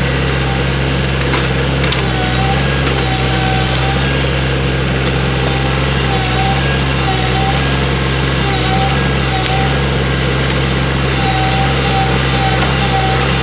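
Excavator's diesel engine running steadily under load, with short repeated whines as the arm works and now and then a crack of wood being broken.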